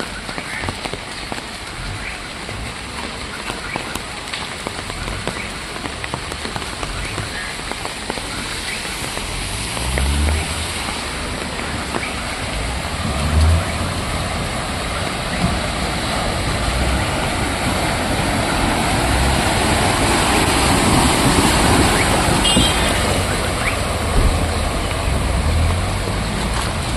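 Steady rush and splash of water as cars drive through a flooded street in the rain, growing louder toward the middle of the second half, with a few short low thumps.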